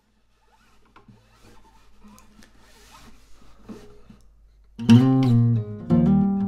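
Faint rustling and light clicks, then about five seconds in a nylon-string classical guitar starts playing plucked notes and chords in Vestapol (open D) tuning.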